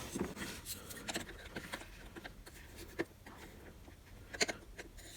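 Faint scattered clicks and light rustling from hands working the band off a black plastic tool case, with a couple of sharper clicks about three and four and a half seconds in.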